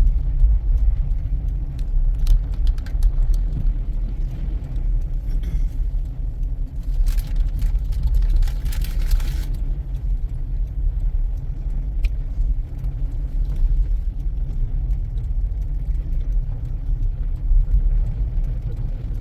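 Steady low rumble of a car driving through deep snow in a blizzard, heard from inside the cabin: engine, tyres and wind. A short hissing rush rises and fades about seven to nine seconds in, with a few light clicks a couple of seconds in.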